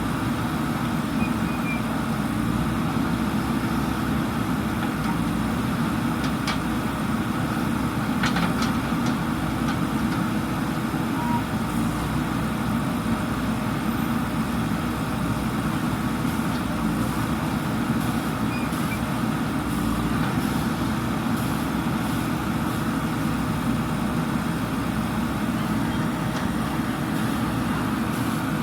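JCB backhoe loader's diesel engine running steadily while the machine works, with a few short metallic clicks or knocks a third of the way in.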